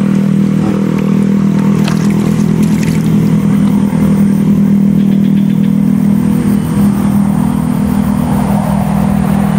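An engine running steadily with an even hum.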